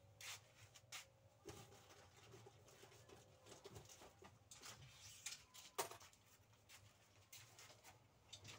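Near silence: faint shop room tone with a low hum and scattered soft clicks and taps.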